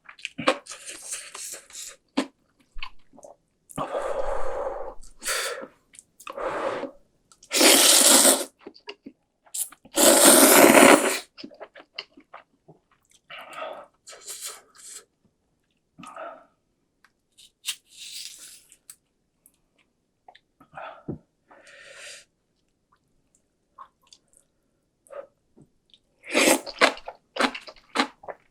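Close-miked eating of cup ramen: loud slurps of noodles, each about a second long, with quieter chewing sounds between them.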